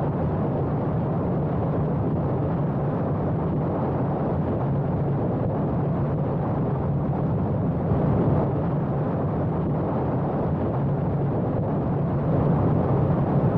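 Steady wind rush on the microphone mixed with the drone of a Suzuki Hayabusa's inline-four engine cruising at highway speed, heard from a camera mounted on the bike. It swells slightly about eight seconds in and again near the end.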